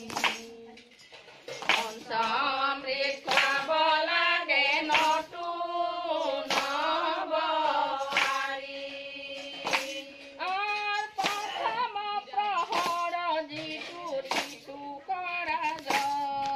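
Group of women singing an Assamese devotional naam (Aai naam) together, unaccompanied, with sharp hand claps marking the beat roughly once a second.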